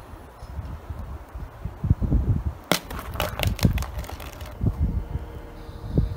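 Disc golf basket chains rattling and clinking for about two seconds as a putted disc hits them, starting near the middle, with low thumps around it.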